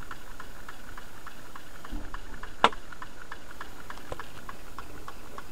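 Low-temperature-differential beta Stirling engine running on the heat of a cup of tea, its mechanism making a faint, rapid, even ticking as the flywheel spins. A single sharper click about two and a half seconds in.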